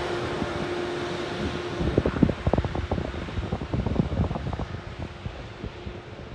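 A taxiing Airbus A320neo's jet engines give a steady hum with a held tone that gradually fades. For a few seconds around the middle, gusts of wind buffet the microphone.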